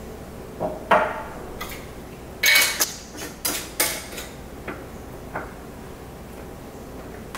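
Glass mason jar and small kitchen containers being handled on a counter: a string of sharp clinks, taps and knocks, some with a brief glassy ring, loudest about a second in and again around two and a half seconds.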